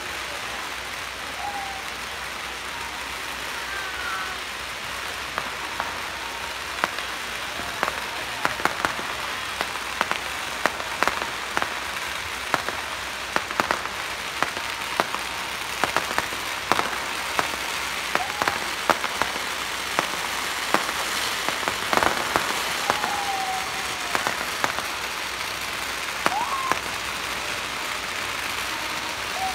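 Strings of firecrackers going off in a dense, continuous crackle like rain on a surface, with many sharp louder bangs scattered through it from about six seconds in.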